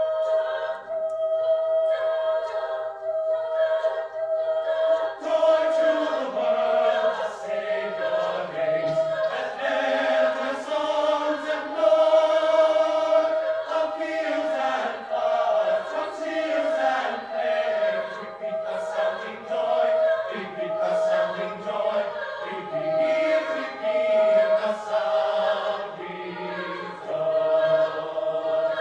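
College choir singing a holiday piece, one high note held steady over lower voice parts that come in about five seconds in.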